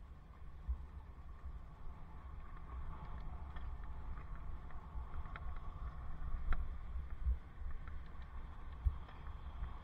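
Wind rumbling on a helmet-mounted camera microphone while riding a bicycle, with a faint steady hum and a few light clicks, the sharpest about six and a half seconds in.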